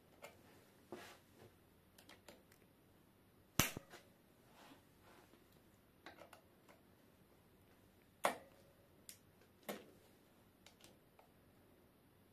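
Scattered small clicks and taps of pliers and fingers working on a cable-operated bicycle disc brake caliper while its brake pads are taken out. Three sharper metallic clicks stand out, each ringing briefly.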